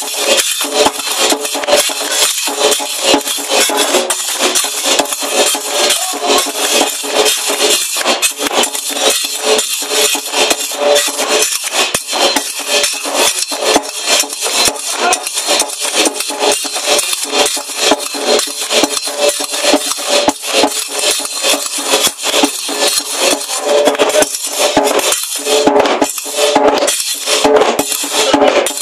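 Live Berber folk music: a hand drum and hand-held percussion playing a fast, dense, steady clacking rhythm.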